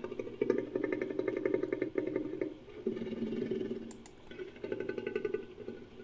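Designed creature vocal sound effect: a low, rattling growl that comes in three stretches, the first about two seconds long and the next two shorter.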